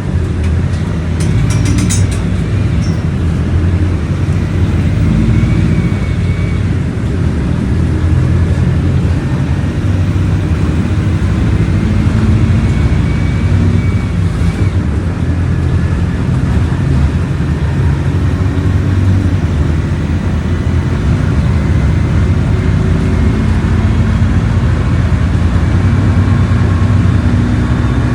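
Volkswagen Volksbus 17.230 Euro VI bus engine running under way, its pitch rising and falling with engine speed. A thin high tone comes and goes at times: the tyres singing.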